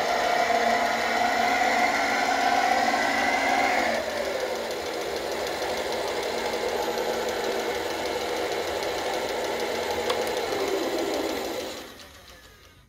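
Simulated truck engine sound from a UMS-RC2 sound module, played through the model's small built-in speaker with no deep bass. It runs at raised revs for about four seconds, drops to a steady lower idle, then dies away about a second before the end.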